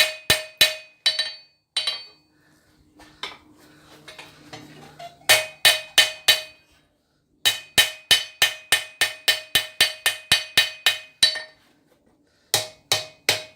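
Hand hammer striking steel on an anvil, ringing with each blow, in quick runs of about three to four blows a second broken by short pauses, as the S hook is squared up.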